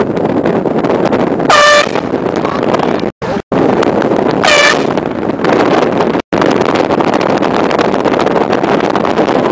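Two short air horn blasts, about three seconds apart, over a loud steady rushing noise; the sound cuts out completely three times for a moment.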